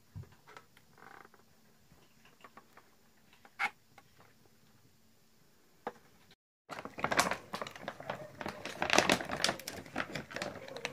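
A few faint taps of cardboard boxes being handled, then, from about six and a half seconds in, many cats crunching dry kibble from one bowl: a dense, irregular clatter of crunches and clicks.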